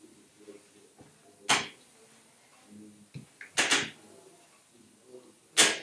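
Upholstery fabric being tugged taut and rubbed over a padded seat cushion: four short rasping swishes at uneven intervals, the middle one doubled.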